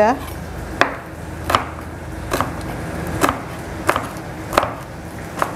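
Kitchen knife slicing Indonesian bay leaves (daun salam) on a wooden cutting board: seven separate chops, about one every three-quarters of a second.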